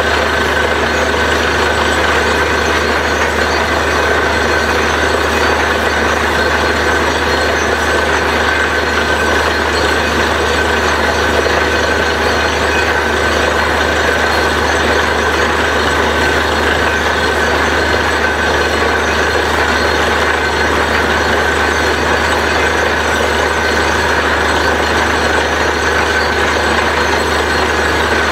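Truck-mounted borewell drilling rig running steadily, its diesel engine and air compressor giving a continuous low drone with a steady high whine over it.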